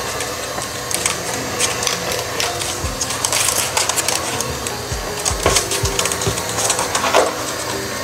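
Cordless stick vacuum running over a hardwood floor at a steady level, with background music with a beat underneath.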